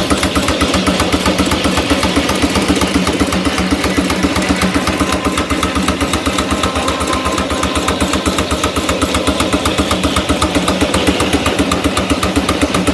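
Case portable steam engine running steadily, its exhaust beating in a fast, even rhythm of about eight beats a second, with a steady hiss above it.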